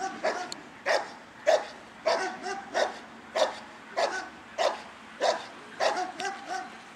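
A dog barking steadily and repeatedly at a decoy in a padded protection suit, a little under two barks a second. These are guarding barks in protection training.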